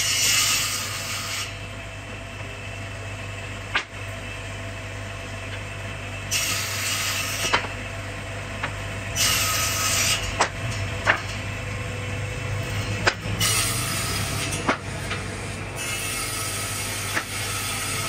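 Electric table saw running with a steady motor hum, ripping through wooden boards in four short cuts, with sharp wooden knocks as the boards are handled and set down.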